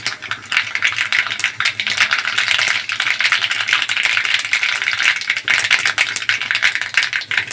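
Mustard seeds crackling and popping in hot oil in a kadhai, a dense run of quick sharp crackles: the tempering (tadka) step, the sign that the oil is hot enough and the seeds are splitting.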